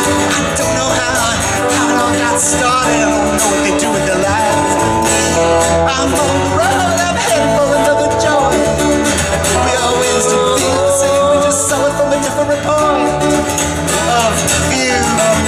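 Live band music: electric and acoustic guitars over drums, with a melody line that bends in pitch.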